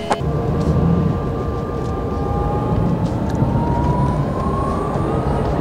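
Camsys CEVO-C SE electric microcar pulling away and gathering speed, heard from inside the cabin: a steady low road rumble under a high whine that rises slowly in pitch as the car accelerates.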